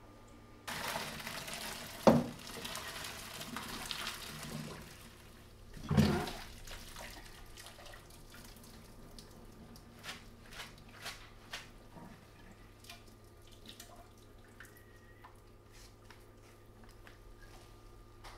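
Pasta water poured from a pot through a metal colander into a stainless steel sink, a rushing splash lasting about six seconds with a loud knock about two seconds in and another near the end of the pour. Afterward comes dripping and light metal taps as the drained linguine is shaken in the colander.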